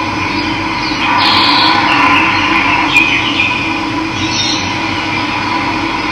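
Steady rush of running water, with birds chirping briefly a few times over it.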